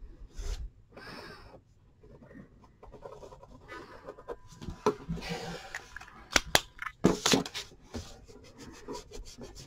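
Felt-tip marker scratching across paper in short strokes, with a few sharp clicks and knocks in the second half.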